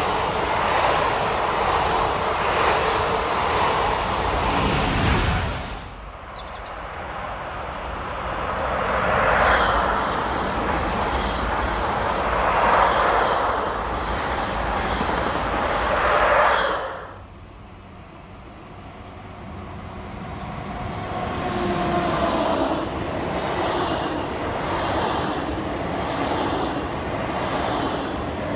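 Double-deck electric commuter trains passing along a station platform, heard in three separate passes that cut off abruptly about 6 s and 17 s in. Each pass is the steady rumble and rail noise of the train going by. The last pass has a falling whine about two-thirds of the way through.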